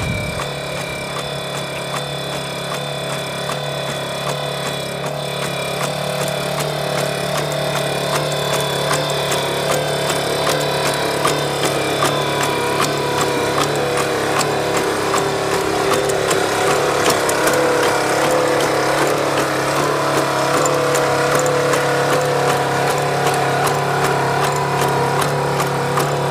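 Engine of an LS3 legged robot running steadily, driving its hydraulics, with regular ticks a few times a second. It grows louder over the first several seconds.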